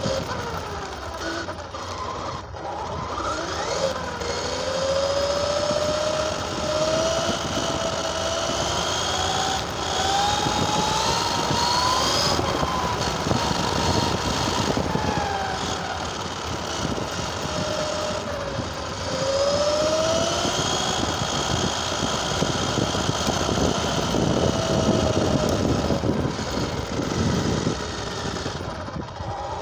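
RC car's motor running under varying throttle as it drives, its pitch climbing slowly for about ten seconds, dropping, then rising and falling again, over a steady rough running noise.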